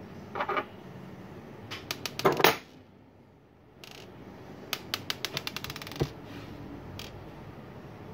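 Small metal parts of a dismantled Kral Puncher Jumbo fill probe clicking and clattering on a wooden desk as they are handled and set out: a few clicks, a louder clatter a little over two seconds in, then a quick run of quickening clicks and a single knock.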